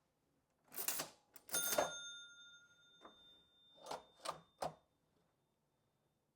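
1914 National Cash Register Model 317 being worked by hand, its mechanism still in working order. A sharp mechanical clack comes first, then a bell strikes once and rings on for about two seconds, then three quick clacks follow about four seconds in.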